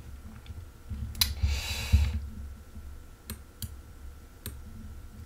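A few sharp, isolated clicks at a computer, and a short hiss lasting just under a second after the first click, about a second in.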